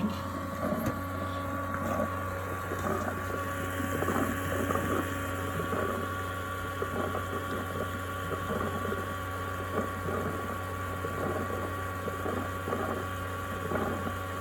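Ecovacs Deebot X1 Omni base station pumping water through its mop system on its first run: a steady pump hum with a faint high whine over irregular gurgling of water.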